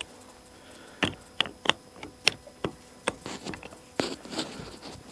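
Irregular sharp clicks and small taps as a digital hand torque screwdriver is worked on a carburetor screw, about a dozen over a few seconds.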